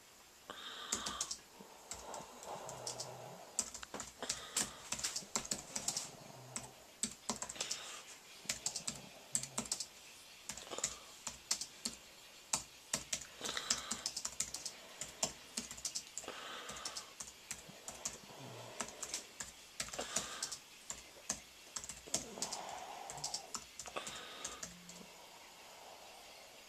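Typing on a thin, low-profile wired computer keyboard: quick runs of light key clicks broken by short pauses.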